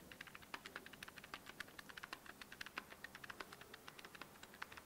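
Keys of a handheld calculator being tapped in a quick, irregular run of faint clicks, adding up a column of figures to check that a balance sheet tallies.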